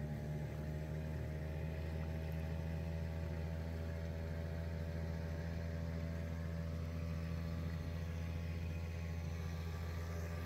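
Small outboard motor on a dinghy running steadily, a constant engine hum.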